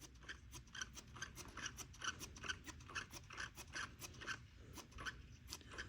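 Primer bulb on a Craftsman two-stroke chainsaw pumped over and over with a faint squeak, about four presses a second; the fuel tank is nearly empty.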